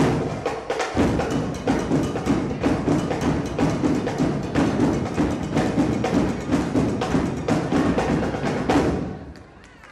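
Loud percussion-driven music with a fast, dense beat of drum hits, which fades out near the end.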